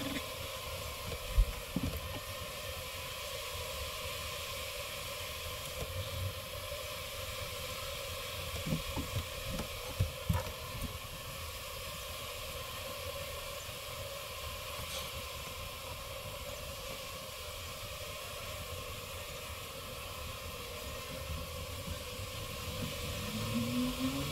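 Steady hiss with a few short knocks and scrapes from cutting honeycomb out of a wall hive by hand, one sharp knock about a second in and a cluster of softer ones near the middle.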